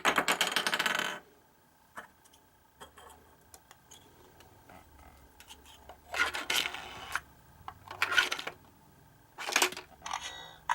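Airsoft ray gun prototype giving off bursts of ringing, metallic sound: one lasting about a second at the start, then four shorter ones from about six seconds in.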